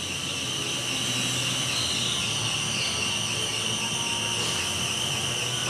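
Steady machine-shop noise from CNC mills and lathes running: a constant high whine over a low hum.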